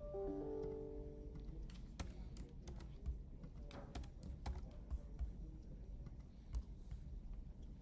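A short electronic chime of a few steady tones for the first second and a half, then irregular clicks of a computer keyboard and mouse as code is typed and run.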